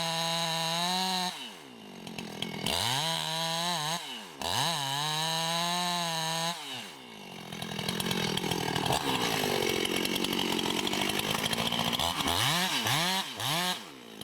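Two-stroke chainsaw revving at high speed, dropping off the throttle and sweeping back up several times. From about eight seconds in it runs on steadily with a rougher sound, cutting into wood, and ends with a few quick revs.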